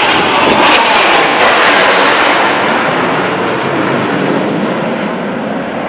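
Four Blue Angels F/A-18 Super Hornet jets flying past in close formation, a loud, steady jet-engine roar. It is loudest in the first two seconds, then slowly eases.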